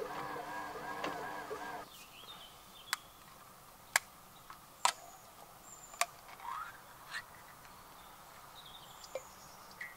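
For the first two seconds, a small electric motor hums with a repeating warble, from the bread maker and power station. Then a wood fire in a camp stove gives irregular sharp pops and cracks, about one a second and the loudest sounds here, while birds chirp in the woodland.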